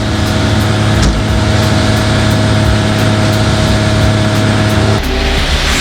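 Concrete mixer truck's diesel engine running steadily at raised speed to turn the drum and mix in the delay packs; the engine note changes about five seconds in.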